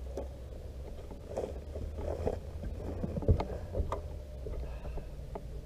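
A boat's steady low motor hum, with a few knocks and thuds on the deck as a man moves to the bow; the loudest knock comes a little past the middle.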